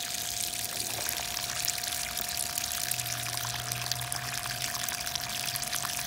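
Water jetting steadily out of the end of a drain hose and splashing onto gravel, with a faint steady thin tone beneath it. The stream is being forced out at a fast rate by a Milwaukee M18 cordless transfer pump draining a water heater.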